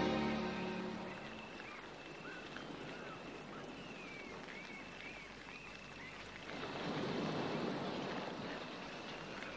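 Lakeside wind and water ambience, a steady soft wash with a few faint high chirps; the wash swells for a couple of seconds about seven seconds in. Orchestral string music fades out at the very start.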